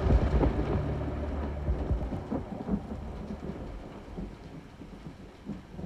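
A low thunder rumble over steady rain, the rumble dying away over a few seconds.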